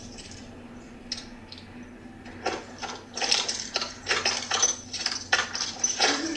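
A door's lock and handle being worked: a quick run of metallic clicks and rattles starts about two and a half seconds in and goes on until near the end, over a steady low hum.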